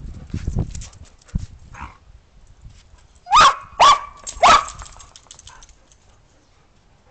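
A dog barking three times in quick succession, about half a second apart, each bark sharp and rising at its start. Before the barks there is a second of scuffling noise.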